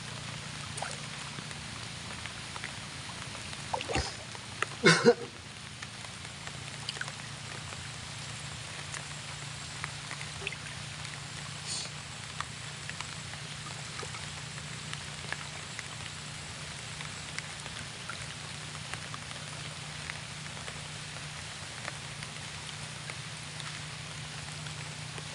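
Quiet ambience around a small wooden boat on still water: faint scattered ticks and drips of water against the hull over a steady low hum. A short, loud, irregular sound breaks in about four to five seconds in.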